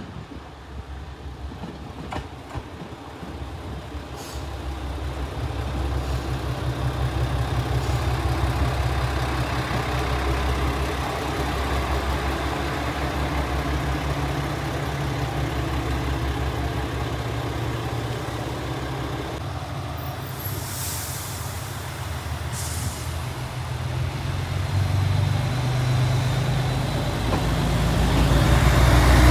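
JR Shikoku 2000 series diesel multiple unit pulling into the station: its diesel engines run with a low steady drone that grows louder as the train draws alongside. About two-thirds of the way through there are two short hisses of released air.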